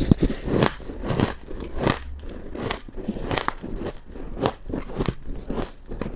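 Mouthful of powdery freezer frost being chewed, an irregular run of crisp crunches at about two a second.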